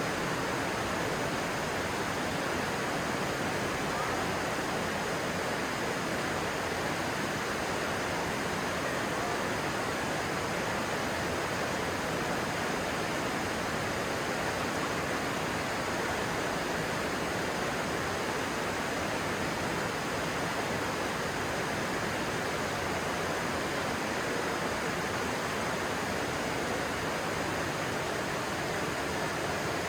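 Stream water rushing, a steady, even rush with no change in level.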